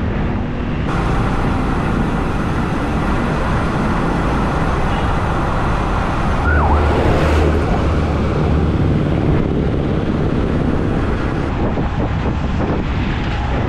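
Steady road and traffic noise from a moving bicycle on a city street, with a louder low rumble for a couple of seconds about halfway through, as a vehicle passes.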